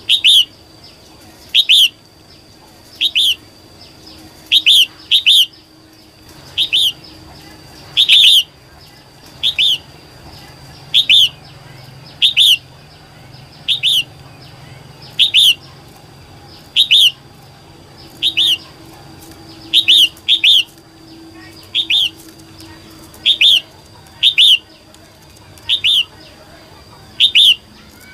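Female red-whiskered bulbul call, a short sharp chirp repeated at a fairly even pace about every second and a half, sometimes as a quick pair; a call used to excite male bulbuls.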